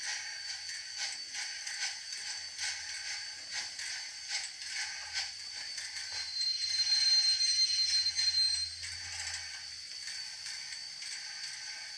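Large-scale model steam locomotive running slowly on its track, its gearing and wheels giving a steady mechanical clicking over a faint low hum. For a few seconds past the middle the sound grows louder, with a high steady tone.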